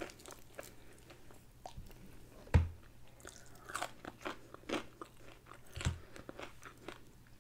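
Close-up chewing and crunching of a crispy fried chicken wing, a run of small crackly crunches. Two louder thumps stand out, about two and a half and six seconds in.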